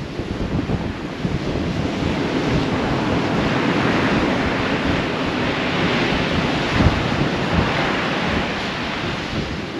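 Surf breaking on the shore, the wash swelling to a peak past the middle and easing off near the end, with gusty wind buffeting the microphone.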